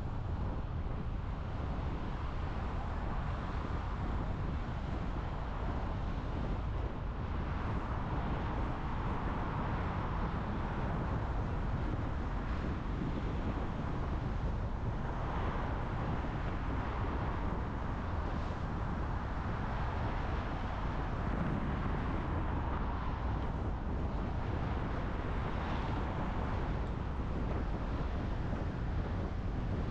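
A car driving, giving a steady low rumble of road and engine noise that swells gently every few seconds.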